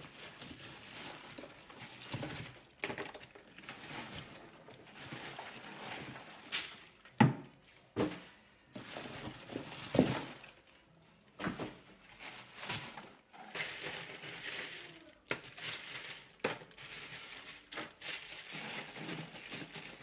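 Frozen food in plastic bags being rummaged and shifted inside a chest freezer: plastic crinkling, with scattered hard knocks and thuds of frozen packs and ice, the loudest two about 7 and 10 seconds in.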